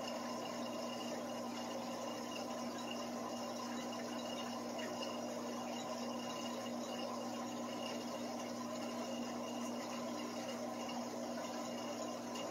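Aquarium filter running steadily: a constant pump hum with the wash of moving water.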